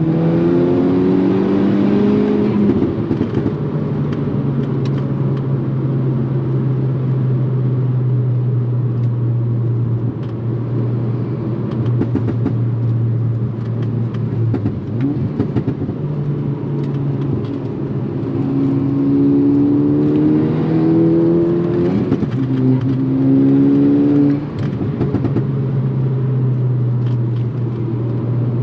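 Turbocharged four-cylinder engine of a tuned MK6 Volkswagen Golf R with an aftermarket turbo exhaust, driving at a steady drone. It rises in pitch as it pulls up through the revs at the start, and twice more near the end, the last pull cutting off sharply as the throttle closes.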